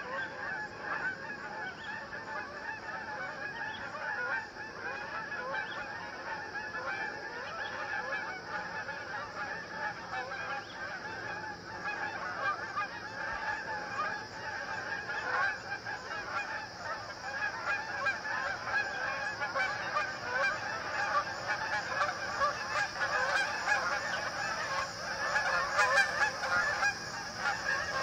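Flock of Canada geese honking, many calls overlapping without pause and growing louder in the last few seconds.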